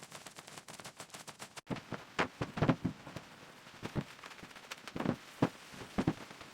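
Fast crackling ticks that cut off abruptly, followed by a series of irregular knocks and clunks, a cluster about two seconds in and single ones spread through the rest.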